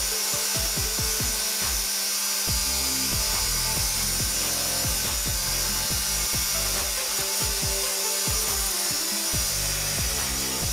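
Bench grinder wire wheel scrubbing rust and dirt off the water pump's metal end cover, a steady, unbroken hissing scrape as the part is turned against the spinning wheel.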